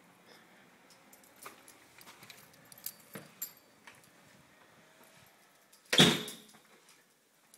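Keys jingling and clicking against a door lock as a front door is unlocked and opened. Near the end comes one loud bang that dies away quickly.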